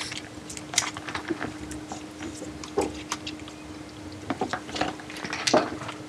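Thin plastic water bottle handled in the hands: irregular crinkling and clicking of the plastic, with a little water moving inside, as the cap is worked back on. A faint steady hum runs underneath.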